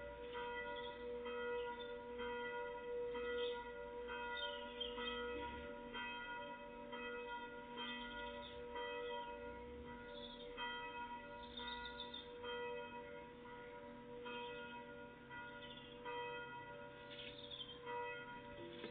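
Bells ringing, struck again and again in quick succession, the tones hanging on between strikes.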